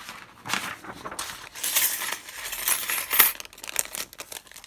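Thin metal cutting dies clinking against one another as they are slid out of a crinkling clear plastic sleeve. Many small irregular clicks and rustles, busiest in the second half.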